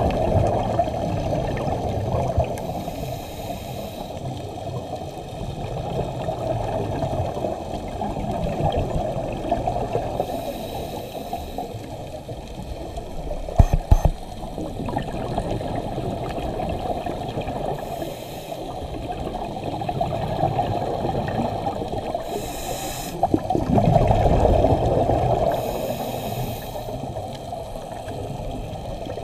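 Muffled underwater sound of a scuba diver breathing through a regulator, the exhaled bubbles gurgling and swelling every few seconds. One sharp knock comes about 14 seconds in.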